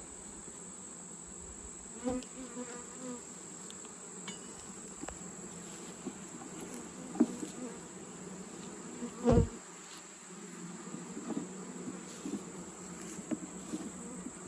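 Honeybees buzzing around an opened beehive, a steady hum, with a few short knocks, the loudest about nine seconds in.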